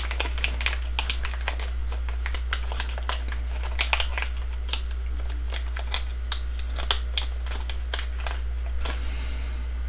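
Clear plastic zip-lock bag crinkling and crackling as hands open it and work small 3D-printed resin track parts out of it, giving many short, irregular clicks. A steady low hum runs underneath.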